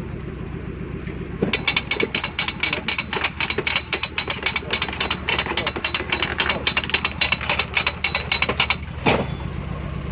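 An engine idling steadily. About a second and a half in, a rapid, irregular metallic clattering starts on top of it and runs for about seven seconds, ending in a single louder knock.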